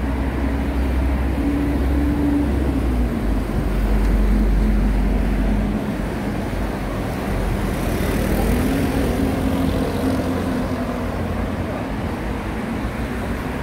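Street traffic: vehicles driving past, with an engine hum that rises and falls in pitch and a steady low rumble, and a passing vehicle's tyre hiss about eight seconds in.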